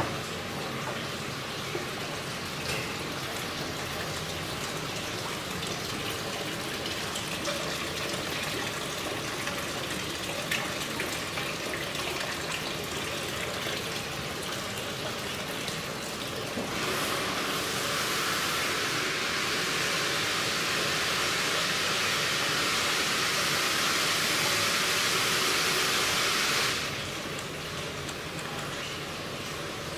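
Water running and splashing into the tanks of an indoor recirculating fish-farm system, a steady rushing hiss. It grows louder for about ten seconds past the middle, where water pours in close by, then drops back.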